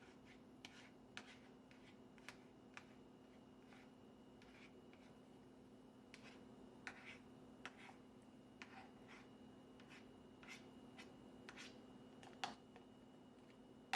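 Faint scattered clicks and taps of a spoon scooping cooked rice and knocking against the pot and the meal-prep dishes, with one louder tap near the end, over a steady low hum.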